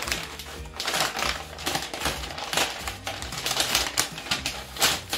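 Brown kraft-paper sleeve around a shipped potted orchid rustling and crackling as it is handled and pulled open, in a dense run of crisp crinkles. Background music plays underneath.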